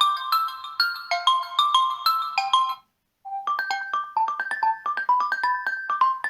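Pre-installed ringtones on a Xiaomi Redmi 7A phone: a repeating melody of short notes stops almost 3 seconds in, and after a brief silence a different ringtone with quicker notes begins.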